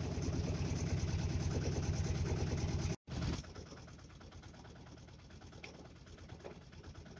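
An engine running steadily with a rapid, even low pulsing. It cuts off about three seconds in and resumes at once, much quieter.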